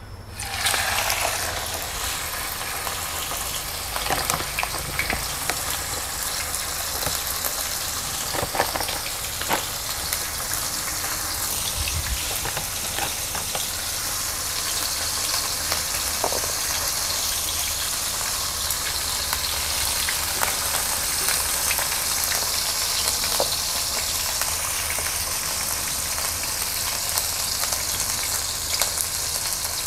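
Flour-coated, scored chicken breast pan-frying in shallow hot oil. The sizzle starts abruptly as the meat goes into the oil, then carries on as a steady hiss with scattered pops.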